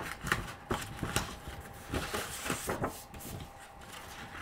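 Patterned cardstock being handled and pressed together by hand over double-sided tape: a string of irregular paper rustles and light taps.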